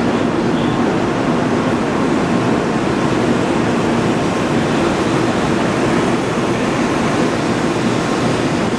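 Steady, even rushing noise from a Shinkansen N700 series train standing at the platform, its air-conditioning and equipment cooling fans running, with a faint steady hum underneath.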